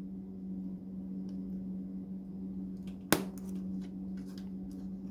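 Hobby knife blade cutting small printed nylon A-arms off their parts tree. There are a few faint clicks and one sharp snap about three seconds in as a part comes free, over a steady low hum.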